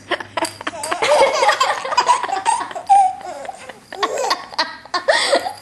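A baby laughing hard in a long run of short bursts.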